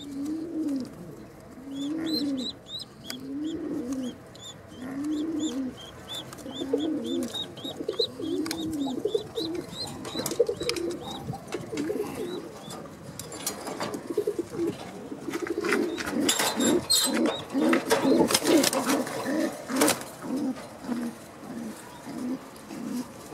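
Gorguero pouter pigeons cooing: a low coo that rises and falls, repeated about once a second, coming quicker and shorter in the second half. High thin chirps run through the first ten seconds, and bursts of clattering come in the middle.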